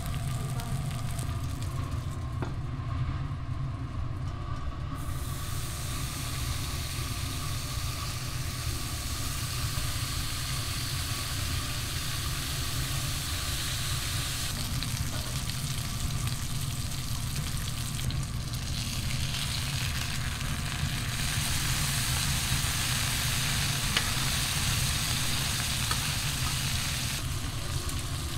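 Food sizzling as it fries on a hot cooking surface, over a steady low hum. The sizzle comes in a few seconds in and grows louder about halfway through.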